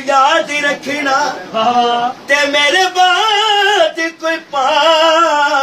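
A man singing a Punjabi devotional qasida through a microphone, holding long notes that waver in pitch.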